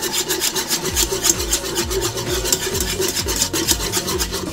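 Wire whisk scraping rapidly and rhythmically around the bottom of a pot, beating a thick roux of flour, butter and water.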